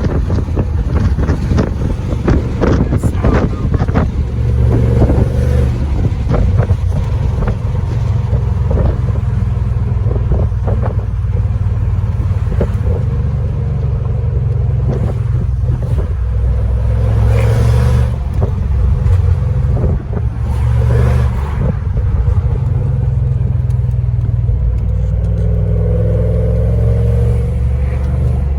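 Mercedes-Benz CL63 AMG's M156 6.2-litre V8 running under way, heard from inside the cabin: a steady, deep engine note, with short clicks and rustles over it.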